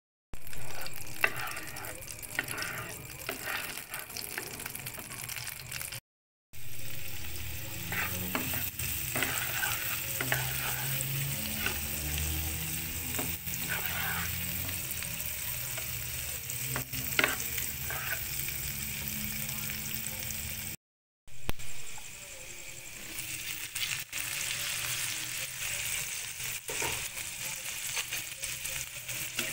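Butter, then chopped onion and garlic, sizzling in a nonstick frying pan, with a wooden spatula scraping and tapping against the pan as the food is stirred. Near the end pieces of dory fillet are frying in it too. The sound drops out briefly twice.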